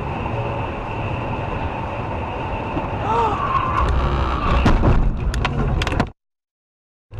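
Car at highway speed heard from inside: steady road and engine noise, then debris flying at the car strikes it with a quick series of sharp knocks and bangs over about a second and a half, before the sound cuts off suddenly.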